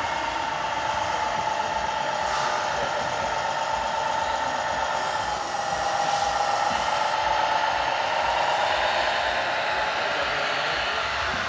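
Radio-controlled scale model trucks driving, a steady whine with a slowly wavering pitch. A short hiss comes in about five seconds in.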